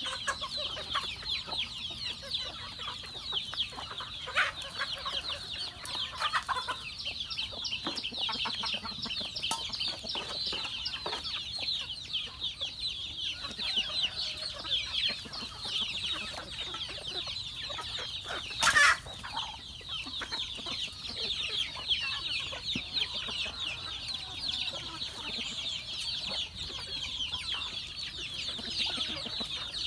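A flock of chickens calling over one another: a continuous high chatter of many short overlapping calls. A single loud knock or clatter comes about two-thirds of the way through.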